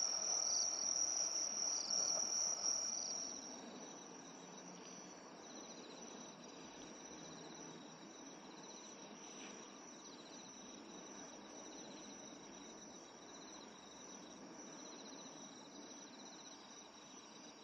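Night insects chirping: a steady high-pitched shrill with a pulsing trill running under it. Loud for the first three seconds or so, then quieter.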